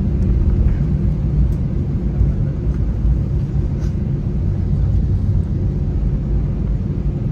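Cabin noise inside an Airbus A321-231 on the ground after landing: a steady low rumble with a steady hum running under it, and a few faint ticks.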